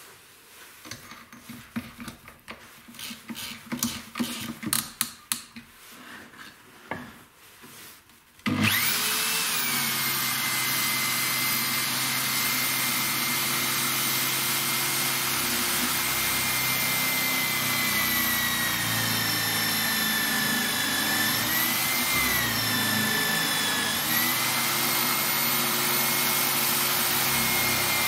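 Bosch GSB 21-2 RE drill in a drill stand starts up suddenly about a third of the way in and runs steadily with a high whine. Its pitch shifts twice in the later part as the 25 mm bit bores recesses for T-nuts into plywood. Before it starts there are light clicks and knocks of handling.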